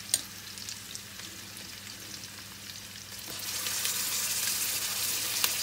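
Sliced onions and whole green chillies sizzling as they fry in a butter ghee and oil mix. The sizzle grows louder about three seconds in, as ginger garlic paste goes into the pan. There is a light tap just after the start.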